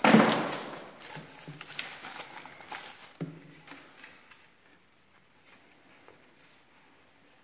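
Plastic wrapping crinkling and hard plastic vacuum attachments knocking and clicking as a crevice nozzle and tube are fitted onto the hose handle. A loud rustle at the start, then scattered small clicks that grow fainter in the second half.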